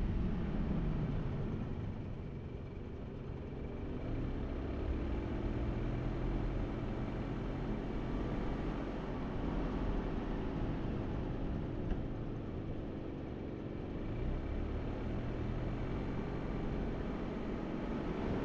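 A car's engine running with road noise. The engine note rises as the car picks up speed, about four seconds in and again later on.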